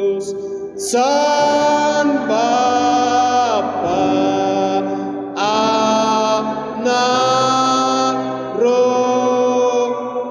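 Slow, chant-like vocal music: long held sung notes, each sliding up into its pitch and held for a second or so before the next.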